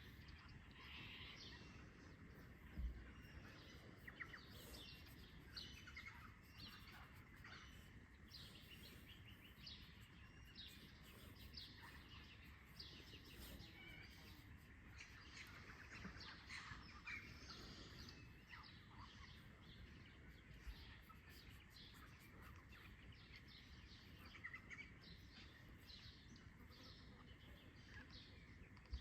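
Faint dawn chorus: many birds chirping and calling in quick, overlapping short notes over a soft steady outdoor background, with a brief low thump about three seconds in.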